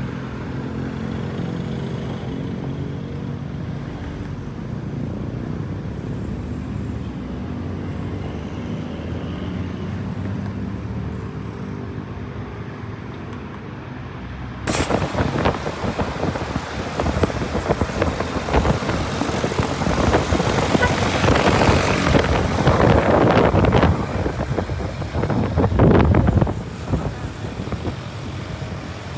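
A vehicle engine running steadily, then about halfway in a sudden loud wind buffeting on the microphone takes over, gusting and crackling, as from riding at speed.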